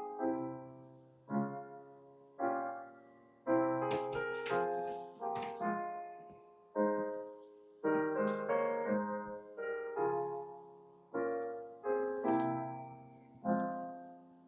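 Solo piano playing slow, gentle chords, each struck and left to fade before the next.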